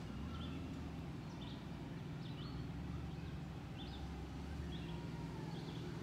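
Birds chirping in short high calls, about one every half second to a second, over the low, steady running of a large vehicle's engine.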